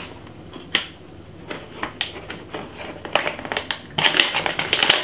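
Plastic seasoning pouch crinkling and rustling as it is shaken and handled, with scattered sharp clicks and a denser burst of crinkling near the end.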